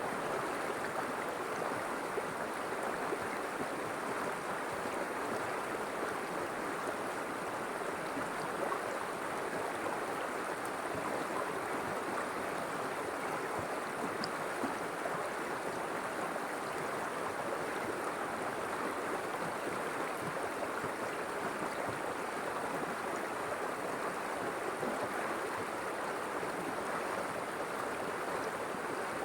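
River water flowing steadily over stones, an even rushing and babbling that doesn't change.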